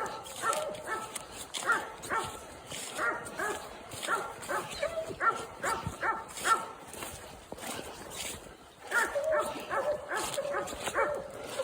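Coonhound treeing: a fast, steady run of short barks, several a second, with a brief lull about eight seconds in before the barking resumes. The barks mean the hound has its quarry, taken for a raccoon, up a tree.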